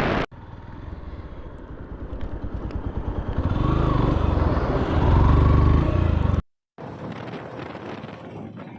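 Motorcycle engine running on the move, growing louder with a rising and falling note a few seconds in, then cutting off abruptly and returning quieter.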